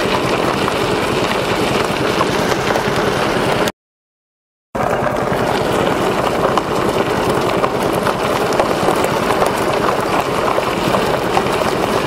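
A wheel rolling over a gravel road: a steady gritty crunch of loose stones with many fine ticks, dropping out to dead silence for about a second a little under four seconds in, then carrying on as before.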